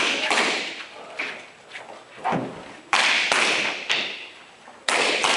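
Loud, sharp bangs in pairs, the two hits about a third of a second apart, three pairs a couple of seconds apart, each hit ringing out and fading over most of a second.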